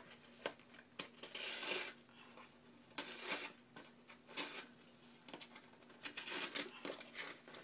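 Paper pages rustling and thread rasping as a needle and thread are pushed and pulled through punched holes in a hand-stitched mini book, in several brief scratchy strokes.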